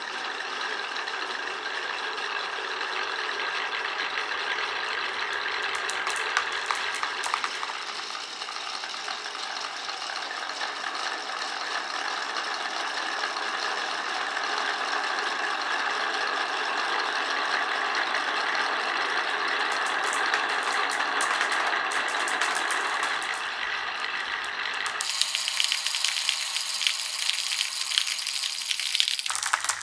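Glass marbles rolling continuously along a wooden and plastic marble run, a dense steady rolling rattle with scattered clicks. About 25 seconds in the sound turns brighter and more clattery, many quick clicks, then stops abruptly just before the end.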